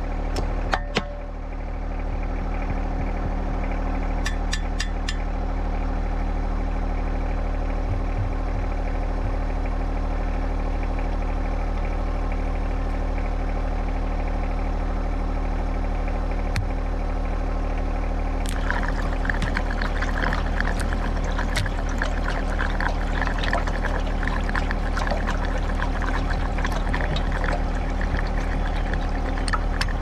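Compact tractor's diesel engine running steadily at idle, with a few clicks near the start. About 18 seconds in, a dense crackling noise joins it.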